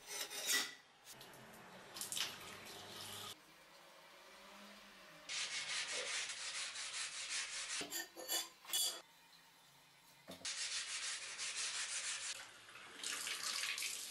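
Hand scrubbing of a rusty steel cleaver blade lying on a tile floor: fast rasping back-and-forth strokes in several short bursts, broken off abruptly between clips. A couple of sharp metallic knocks near the start as the blade is set down.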